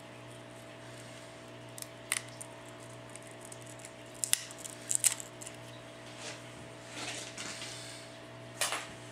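A hand tool prying the broken LCD and digitizer assembly out of an LG G2's frame: a few sharp clicks and snaps with short scraping between them, over a steady background hum.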